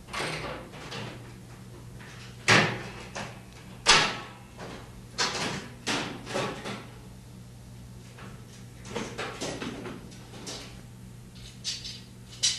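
Metal clamp ring being worked loose and pulled off the outer tub front panel of a front-load washer: an irregular string of knocks and metallic scrapes, the sharpest about two and a half and four seconds in.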